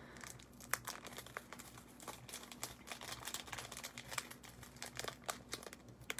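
Faint, irregular crinkling and small clicks of craft materials being handled while two googly eyes are picked out.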